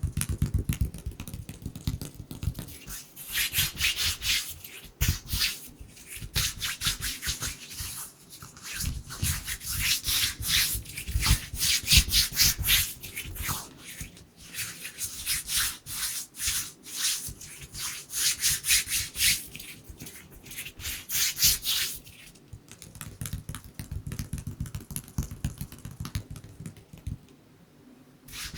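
Bare hands rubbing and brushing together close to a microphone, the dry palm-on-palm swishing of ASMR hand sounds. It comes in runs of quick, rapid strokes with brief pauses between them.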